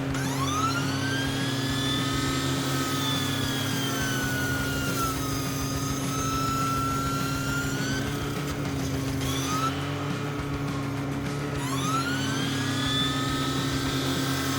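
A machine's engine running steadily under a saw blade's whine. The whine rises as the blade spins up, sags and climbs again, and cuts off about eight seconds in. A second rising whine starts near the end.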